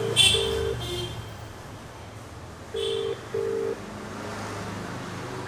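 Mobile phone ringback tone heard through the handset held to the ear: two pairs of short steady beeps about two and a half seconds apart, the Indian-style double ring of an outgoing call waiting to be answered.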